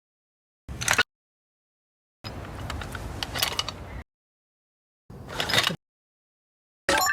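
A string of separate mechanical sound effects cut apart by dead silence: a short burst, a longer run of rapid clicks and ratcheting, a short rising burst, then near the end a sharp click followed by ringing chime-like tones.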